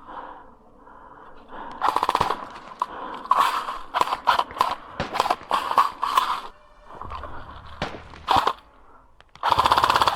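Airsoft electric guns (AEGs) firing full-auto bursts of rapid, evenly spaced clicks: several short bursts, then a louder, longer burst near the end.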